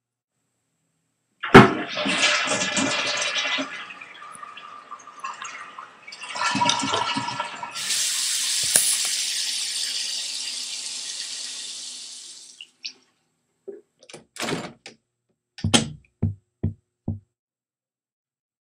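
A toilet flushing with a sudden start and a gurgling rush, then a tap running steadily into a sink for several seconds before it is shut off. A few short knocks follow near the end.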